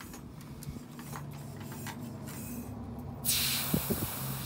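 About a second of loud hiss with a few soft knocks, starting a little over three seconds in, as a rubber scooter inner tube is handled close by. A steady low hum runs underneath.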